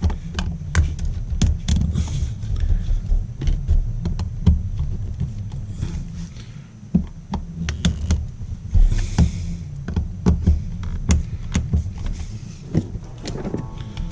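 Hand screwdriver turning an outlet's mounting screws, with scattered sharp clicks of the driver and metal strap against the box, over a steady low hum. Music starts near the end.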